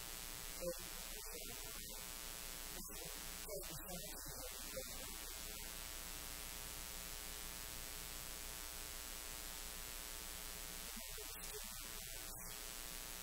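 Steady electrical mains hum with a hiss underneath, the recording's background tone, with a few faint soft sounds in the first five seconds and again near the end.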